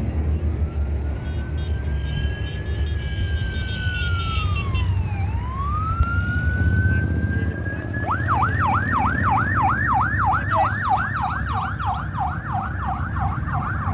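A siren sounds a slow wail that rises and falls, then about eight seconds in switches to a fast yelp of about three sweeps a second. Under it runs the steady rumble of passing motorcycle and quad engines.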